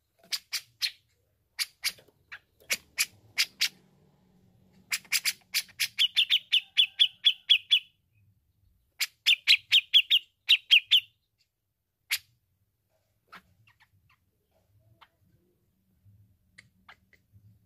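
Grey-cheeked bulbul (cucak jenggot) calling with sharp, clipped notes. About five seconds in and again about nine seconds in come fast chattering runs. After a single note near twelve seconds, only a few faint notes follow.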